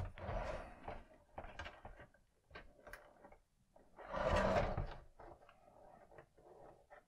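Clear plastic bag rustling and crinkling around a hard plastic toy spaceship as it is turned over in the hands, with small plastic clicks and taps between. There is a burst at the start and a longer one about four seconds in.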